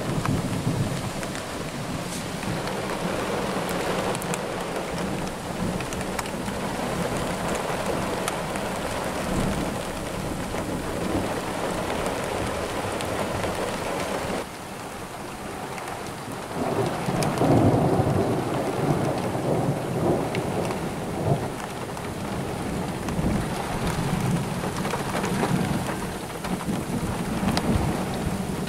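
Thunderstorm: steady rain with rolling thunder. The longest and loudest rumble of thunder comes a little past halfway and lasts about five seconds, with weaker rumbles before and after it.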